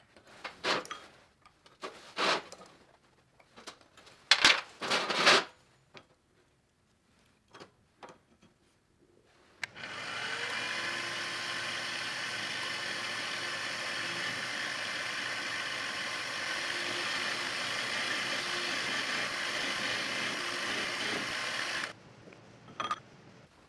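A few short scratching strokes of a steel scribe marking lines on an aluminum bar. About ten seconds in, a benchtop mill-drill's motor spins up with a rising whine and runs steadily while a twist drill bores into the aluminum bar, then it cuts off suddenly near the end.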